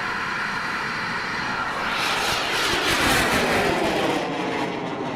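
Bang fai saen, a large homemade black-powder rocket, firing at full thrust as it lifts off and climbs: a steady rushing roar, with a falling, swirling sweep in its tone about two to three seconds in as it pulls away overhead.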